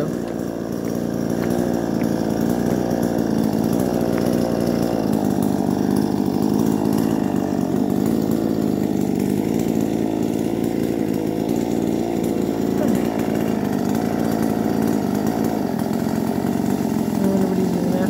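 Chainsaw running steadily as bamboo is cut, a constant droning engine note with no breaks.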